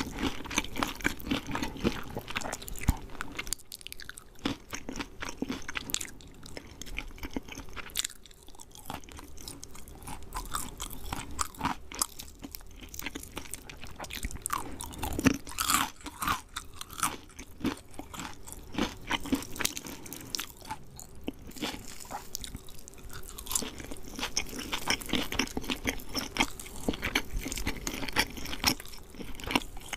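A person chewing KFC fried chicken close to the microphone: crisp, crackling crunches of the fried coating between bites, with brief pauses a few times.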